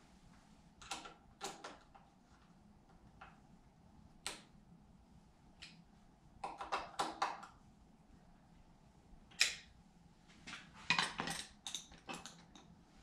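Scattered light clicks and clinks of steering damper brackets and bolts being handled and fitted by hand. Quick clusters of clicks come about halfway through and again near the end, with one sharper click between them.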